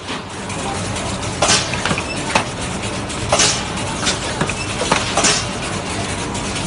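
Magnum ice cream stick-bar production line running, a steady machine noise with a hiss about every two seconds, three times, as the line cycles, and a few sharp clicks in between.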